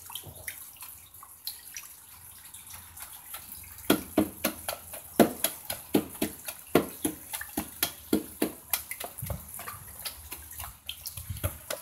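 A large knife blade stirring and mashing cigarette butts soaked in water in a plastic bucket: water sloshing and splashing, with repeated sharp knocks of the blade in the bucket, several a second from about four seconds in.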